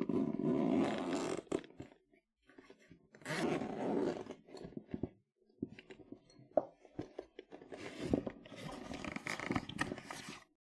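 Zipper on a large fabric duffel bag (Baboon to the Moon Go Bag, 60L) being pulled open in two long pulls a couple of seconds apart, then the lid and lining being handled with cloth rustling and small clicks of the zipper pulls.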